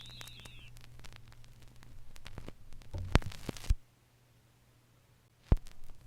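Vinyl record playback between tracks: the last wavering electronic whine of the song fades out in the first second, leaving low hum and surface crackle with a few sharp clicks. About two-thirds through the sound cuts to dead silence, then a single click comes in near the end.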